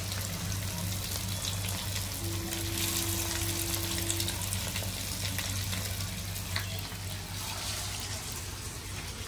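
Masala-coated fish pieces deep-frying in a pan of hot oil: a steady sizzle with fine crackling pops as the oil bubbles hard around them. The hard bubbling shows the fish is not yet fully fried.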